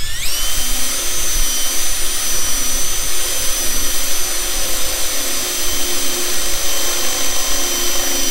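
DeWalt cordless drill spinning up with a rising whine, then running at a steady speed as its bit bores a pilot hole through a welder's sheet-metal side panel. The whine holds steady over the scratchy sound of the bit cutting.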